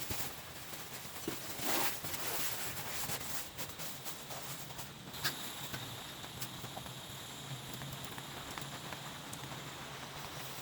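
Rain falling steadily, with scattered sharp taps from drops striking nearby.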